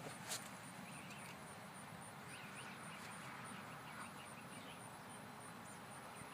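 Quiet outdoor background: a faint high insect chirp repeating about three times a second, with a few faint bird chirps in the middle and a single sharp click about a third of a second in.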